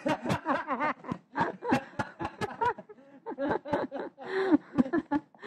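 Someone laughing hard in rapid, repeated "ha" bursts, with a short break about three seconds in and a breathy, wheezing stretch near the end.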